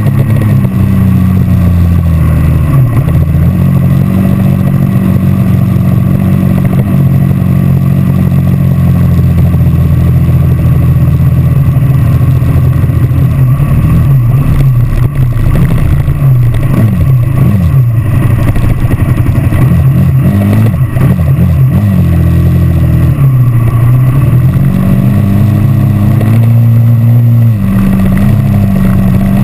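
Dirt bike engine running under way, heard close up from on the bike. It holds a steady pitch at first, then swings quickly up and down with the throttle through the middle, drops lower for a while and climbs again near the end.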